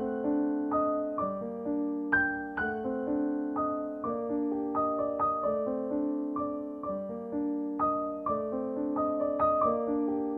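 Background music: a calm piano piece, with single notes and chords struck about twice a second, each one fading away.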